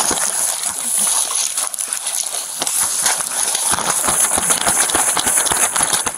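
Rapid, uneven footfalls of people running through tall grass, with grass swishing against clothing and the body camera. Heard close up through a police body camera's microphone.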